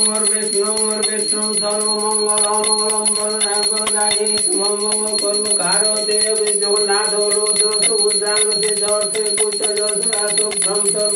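Brass puja hand bell rung rapidly and continuously, a fast steady jangle with a high ringing tone, over one long held low note.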